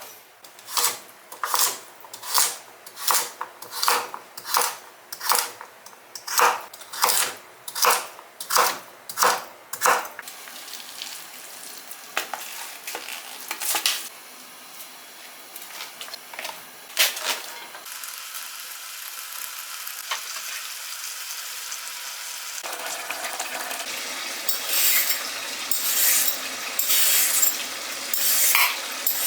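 Kitchen work: a steady run of sharp utensil knocks, about two a second, for the first ten seconds, then scattered clinks. After that comes a steady hiss of food frying in a pan, growing fuller about two-thirds of the way in, with clattering of utensils against the pan near the end.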